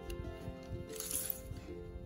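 Background music with long held notes, and a brief scraping rustle about a second in.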